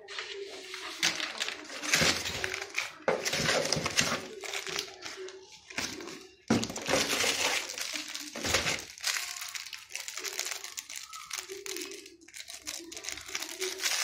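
Plastic wrapping crinkling and cardboard packaging rustling as parts are handled, in irregular bursts with a couple of sharper knocks.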